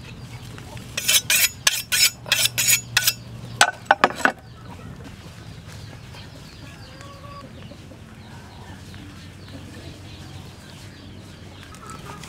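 Chickens clucking in the background. In the first few seconds there is a quick run of about ten sharp clicks.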